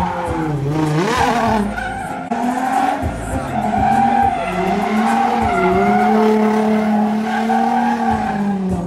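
Nissan 350Z drift car's engine revving hard while it drifts, held in second gear, its note rising and falling over and over as the throttle is worked, with tyres skidding and squealing on the pavement.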